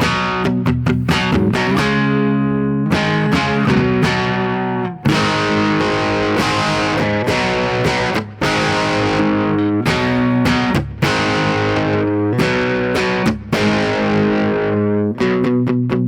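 ESP LTD EC-401 electric guitar with active EMG humbuckers, played through a lightly overdriven amp: chords left ringing, with quick picked rhythm bursts at the start and again near the end.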